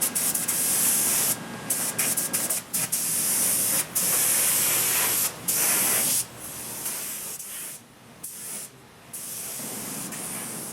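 Spray gun hissing as it lays primer filler onto a car body, in spells broken by several short pauses and quieter in the second half.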